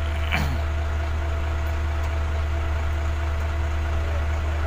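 Hino common-rail diesel truck engine idling steadily at low idle.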